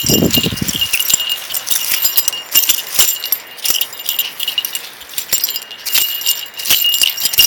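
Small metal tags on a small dog's harness jingling and clinking over and over as the dog hops and jumps, with a brief low rustle at the very start.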